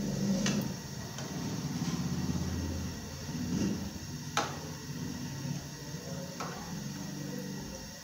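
Pakoras deep-frying in a pan of hot oil, the oil sizzling and bubbling steadily, with a few sharp taps of a metal slotted spoon against the pan, the loudest about four seconds in.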